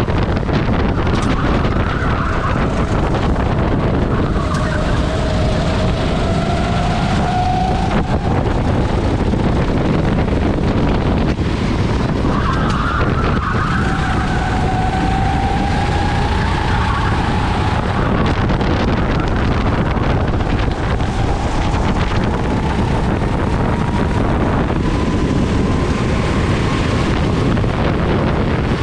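Rental racing kart's engine running hard, its pitch climbing several times as it accelerates out of corners, with the longest climb over the last ten seconds, under a heavy rumble of wind on the onboard microphone.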